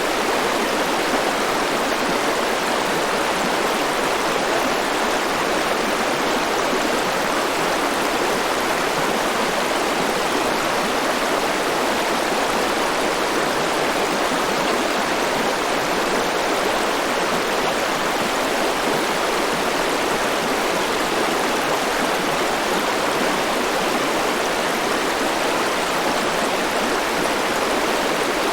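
A flowing stream: a steady, even rush of running water with no breaks.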